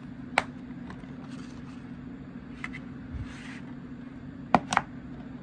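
Plastic DVD case being handled: a few isolated sharp clicks, with two close together near the end, over a steady low hum.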